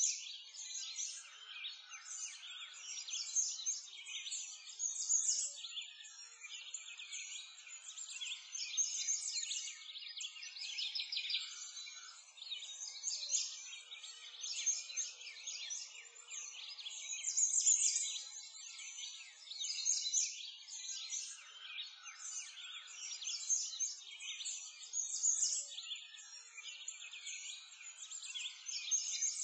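A dense chorus of many small birds chirping and singing at once, high-pitched and without pause, swelling and fading every second or two.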